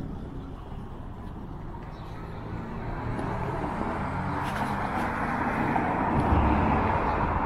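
Road traffic: a car passing, its engine and tyre noise swelling over the second half and loudest near the end, over a low outdoor rumble.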